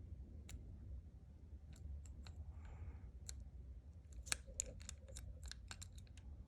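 A hook pick clicking against the pin stacks inside a Master Lock 410 padlock as it is picked under tension: small, sharp, irregular clicks, coming thicker and louder in the last couple of seconds.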